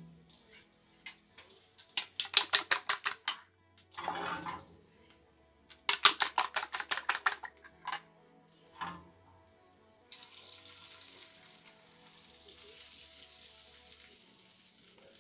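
A fork beating eggs in a bowl, two quick runs of rapid clinks against the bowl. About ten seconds in, beaten egg poured into hot melted butter in a frying pan starts a steady sizzle.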